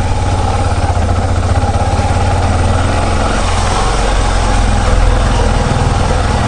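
Yamaha Serow 250's single-cylinder four-stroke engine running steadily at low revs as the motorcycle rolls slowly over a dirt track.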